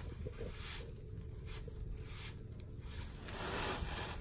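Faint rubbing and handling sounds of gloved hands working ABS cement onto a pipe end with the can's dauber, over a steady low rumble.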